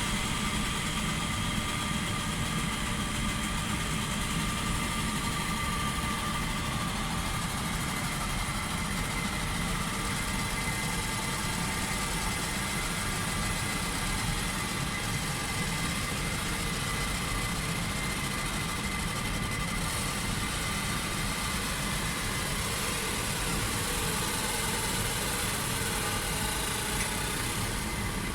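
Galvo laser engraving machine running with its extraction fan: a steady drone under several high, steady whining tones.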